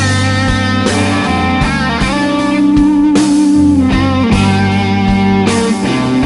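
Live blues band playing an instrumental passage, an electric guitar leading over bass and drums.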